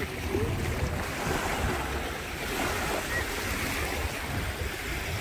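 Small bay waves washing and lapping against the shore, with wind buffeting the microphone as a steady low rumble.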